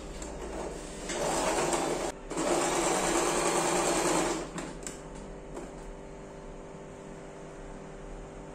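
Electric domestic sewing machine stitching through fabric in two short runs of about one and two seconds, with a brief stop between them.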